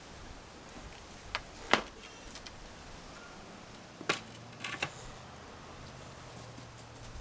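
A few scattered sharp knocks: two a little over a second in and three around four to five seconds in, over a steady low background.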